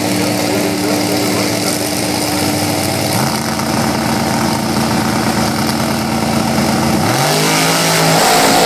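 Two drag racing car engines held at steady high revs on the starting line, one stepping its revs higher about three seconds in. Near the end the revs dip and climb again and the sound grows louder as the cars launch.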